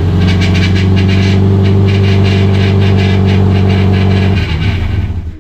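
Subaru EJ25 flat-four engine running steadily just after its first start following the engine swap, with a rapid ticking over the engine note. It stops near the end.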